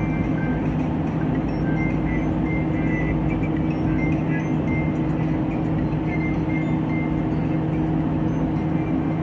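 A 72-inch exhaust fan with a permanent-magnet brushless motor running steadily: an even rush of air over a constant low hum. Short high chirps come and go over it.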